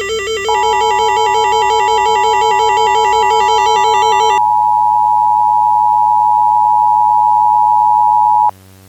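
Emergency Alert System attention signal: a steady two-tone tone (853 and 960 Hz) that starts about half a second in, holds for about eight seconds and cuts off sharply near the end. The music playing under it stops abruptly partway through, leaving a low hum.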